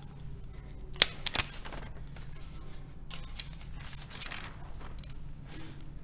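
Sheets of paper being handled and shuffled at a lectern close to a microphone, with two sharp clicks about a second in and softer rustles after, over a steady low hum.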